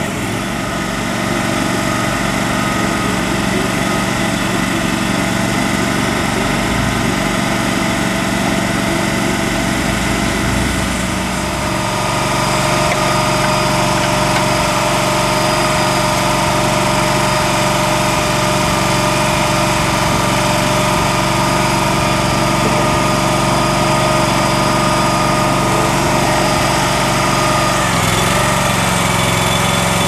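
The small engine of a towable backhoe running steadily. About twelve seconds in it gets somewhat louder and stays there.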